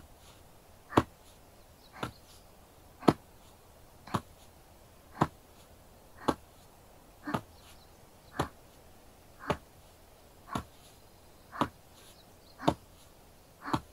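Shoulder-tapping massage (kata-tataki): hands striking a shoulder in a slow, even rhythm of about one tap a second, now and then a quick double tap.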